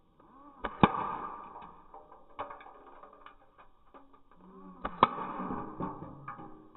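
G36C electric airsoft rifle (metal gearbox, 8.4 V battery) firing BBs at aluminium pop cans: scattered sharp clicks and knocks of shots and hits, loudest about a second in and again about five seconds in.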